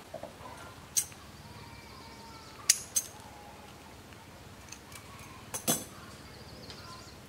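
A handful of sharp clicks: one about a second in, two close together near three seconds, and a pair near the end. They come from pliers snipping and working the electric motor's lead wires. Faint bird chirps sound in the background.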